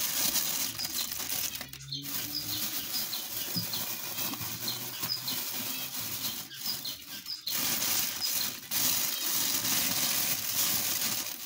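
Plastic grow bag rustling and crinkling as handfuls of lion's mane mushroom spawn are put into the pine-pellet substrate.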